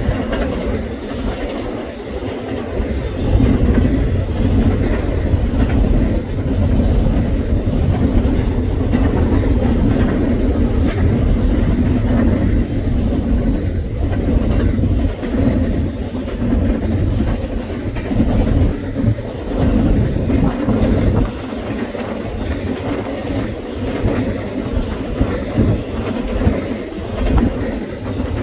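Canadian National double-stack container train's loaded well cars rolling past: a steady, loud rumble of steel wheels on rail, with repeated clickety-clack as the wheels cross rail joints.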